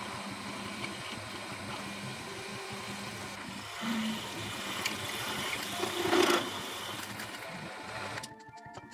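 Benchtop drill press running, its bit cutting through an aluminium plate held in a machine vise; the cutting grows loudest about six seconds in. The sound drops away abruptly shortly before the end.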